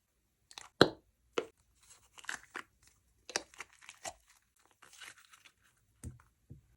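Slime being squished and stretched by hand: irregular sticky crackles, clicks and pops, the loudest a sharp pop just under a second in, with a couple of soft thuds near the end.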